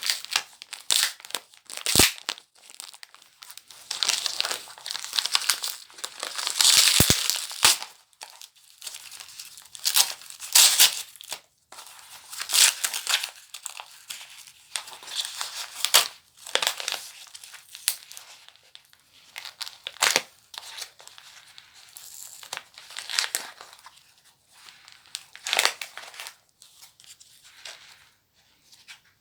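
Paper packaging being torn open and crumpled by hand in irregular rustling bursts, with a couple of sharp clicks in the first seconds.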